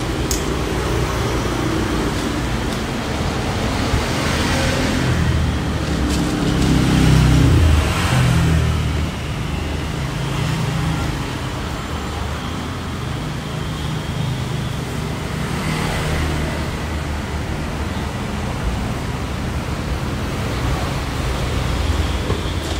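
Road traffic noise: a steady low rumble that swells as a vehicle passes, loudest about seven seconds in.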